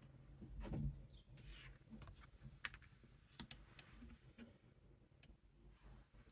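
A few faint clicks and a soft brief slide of oracle cards being handled and moved between readings.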